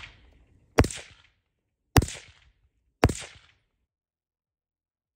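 Three suppressed rifle shots about a second apart, each a sharp crack with a short ringing tail, from an AR-style 5.56 rifle fitted with a Rugged Razor suppressor and its standard flat front end cap.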